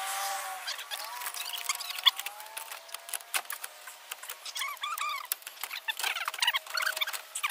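Clicks, knocks and short squeaks of a plastic radiator fan shroud and radiator being worked into place by hand, with the squeaks clustered in the second half.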